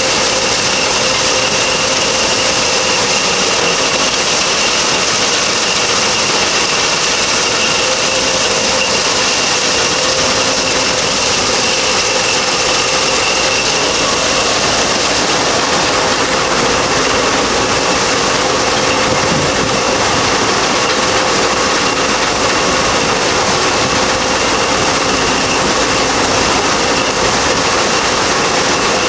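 Belt-driven threshing machine running steadily as sheaves of grain are fed into it: a constant loud mechanical din with a steady whine through it.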